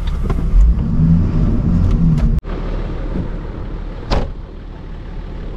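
Toyota 80 Series Land Cruiser engine working hard as the truck pushes through deep, rutted mud. About two and a half seconds in the sound cuts off suddenly, then the engine carries on more quietly, with a single sharp knock about four seconds in.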